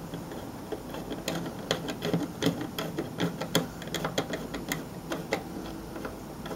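Light, irregular metallic clicks and ticks, several a second, from a small hand tool working the screw fastening on a Model A Ford's windshield wiper arm and shaft.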